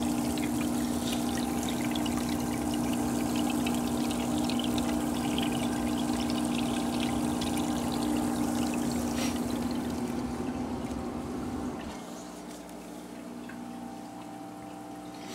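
Aquarium water pouring and trickling, with a steady low pump hum. About twelve seconds in, the hum and the splashing drop away, leaving a quieter trickle.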